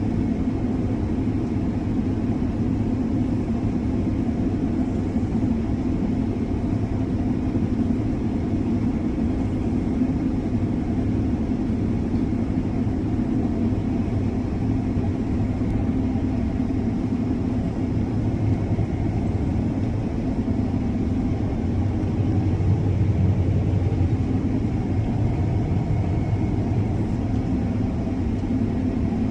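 John Deere S680 combine running steadily under load as it cuts wheat: a constant low engine rumble.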